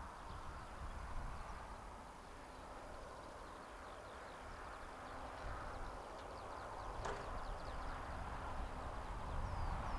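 Quiet outdoor ambience with small birds chirping faintly over a low wind rumble. A single sharp click comes about seven seconds in.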